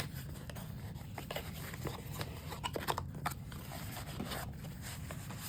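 Hands opening and handling blind-box packaging: a string of small clicks, scrapes and rustles.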